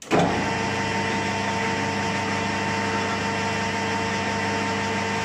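Metal lathe switched on, its motor and spinning four-jaw chuck starting abruptly and then running at a steady speed, a steady mechanical hum with several held tones.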